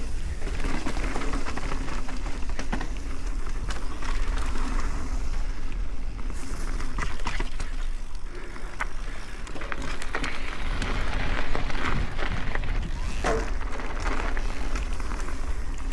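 Mountain bike riding a dirt trail: steady tyre noise on dirt and gravel, with frequent rattles and clicks from the bike over bumps and a constant wind rumble on the camera microphone.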